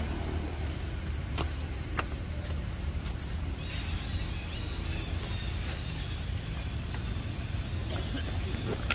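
Steady high-pitched insect drone over a low rumble, with a few faint clicks.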